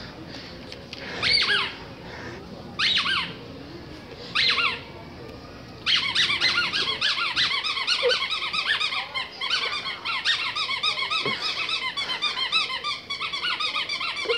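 Rubber squeaky dog toy being squeezed: three separate bursts of squeaks in the first five seconds, then a fast, unbroken run of squeaks, several a second, from about six seconds in.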